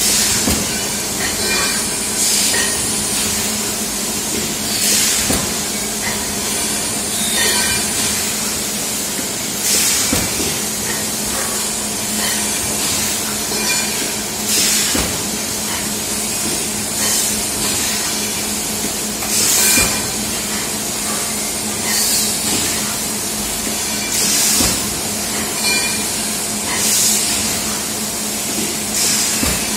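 Cup thermoforming machine with robot-arm stacker running: a steady machine hum, with a sharp hiss of compressed air about every two and a half seconds.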